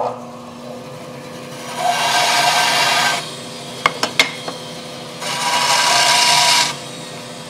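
A bandsaw runs with a steady motor hum and makes two cuts through a board on edge, each about a second and a half long, with a couple of sharp knocks as the board is flipped between them. These are the test cuts for checking that the blade is plumb to the table.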